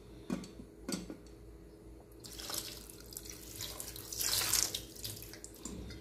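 Water poured from a plastic bottle into an aluminium pot of fish, a splashing stream for about three seconds that is heaviest near the end. It is preceded by a couple of sharp clicks from handling the bottle.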